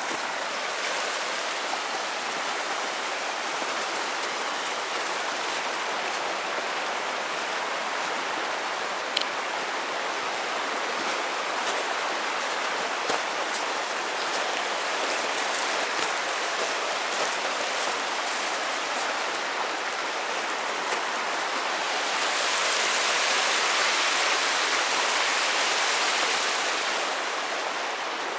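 Creek running between snowbanks: a steady rushing of water, swelling louder for a few seconds near the end.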